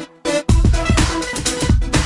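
Background electronic music. A louder, fuller section with deep bass comes in about half a second in.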